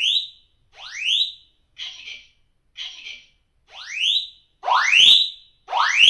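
Wireless fire alarm detectors sounding their alarm during an operation test: a sharply rising sweep tone repeated about once a second, with short hissy bursts between some of the sweeps. The sweeps grow louder near the end.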